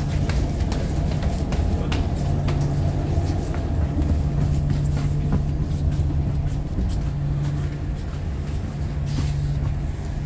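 Low steady drone of the drift-ice sightseeing ship's engines, heard inside the passenger cabin, with a steady hum under it and scattered light clicks.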